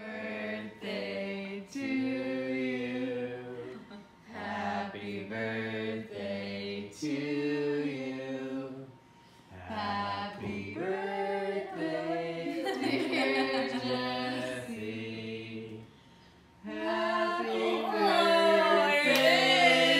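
Music with singing voices: held, gliding sung notes over a bass line that steps between notes, dropping out briefly twice.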